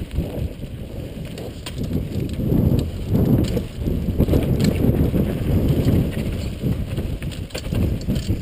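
Mountain bike riding fast down a dry dirt singletrack: a continuous low rumble from the tyres rolling over dirt and stones, broken by many short, sharp rattles and clicks from the bike jolting over bumps.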